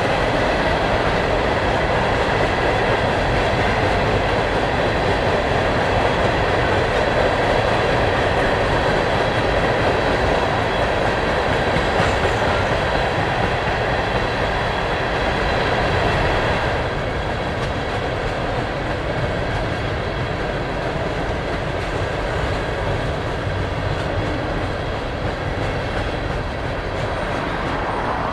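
Freight train rolling past: a steady rumble and clatter of cars and wheels on the rails, easing a little about two-thirds of the way through.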